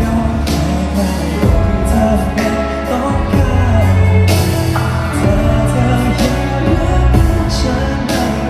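Live pop song: a male singer's voice over a band with bass and drums, cymbal or snare hits recurring through it.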